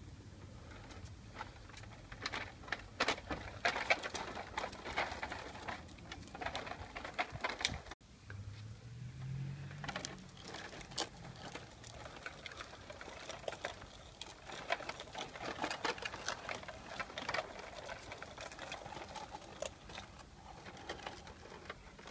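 Irregular light clicks and taps, with a brief dropout about eight seconds in.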